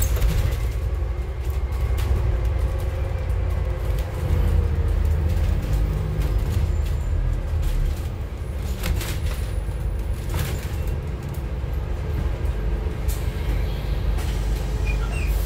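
Scania N280UD CNG double-decker bus heard from its upper deck while under way: a steady low engine and road rumble with body and panel rattles. There are two sharp clatters about a second and a half apart past the middle.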